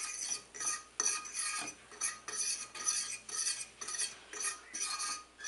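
A metal fork scraping and stirring flour into pan drippings in a stainless steel skillet, in repeated strokes about twice a second. It is the start of a roux for gravy.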